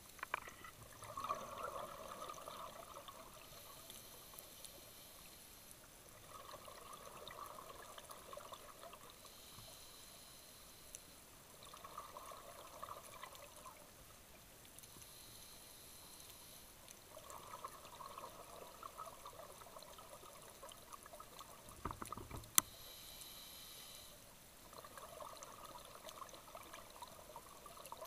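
Scuba breathing through a regulator, heard underwater: a bubbling exhalation about every five seconds, alternating with a thin hiss of inhalation. A single sharp click stands out about three quarters of the way through.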